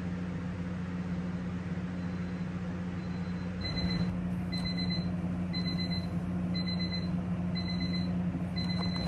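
Alarm clock beeping: a short high beep about once a second that comes in faintly a couple of seconds in and grows louder, over a steady low hum.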